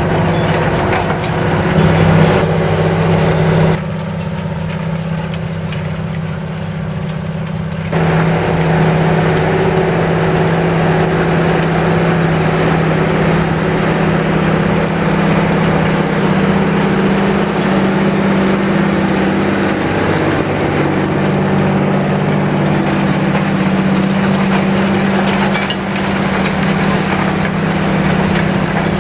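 John Deere 8430 tractor's six-cylinder diesel engine running steadily under load while pulling a Köckerling Allrounder 1200 cultivator. The drone drops and thins for a few seconds about four seconds in, then comes back at full level, and its pitch shifts slightly about two-thirds of the way through.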